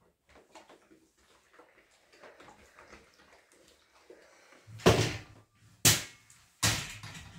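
Faint household handling noises, then three loud knocks about a second apart, like doors or cupboards being shut.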